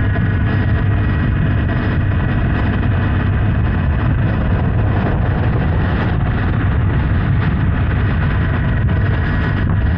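Honda Hornet 900's inline-four engine running steadily under way, with a steady rush of wind and road noise.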